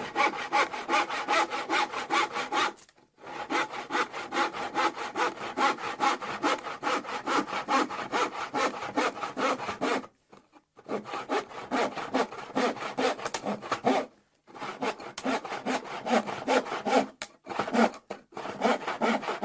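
Hand saw cutting through wood with quick, even back-and-forth strokes. It works in long runs that stop briefly a few times, about 3, 10 and 14 seconds in, and twice near the end.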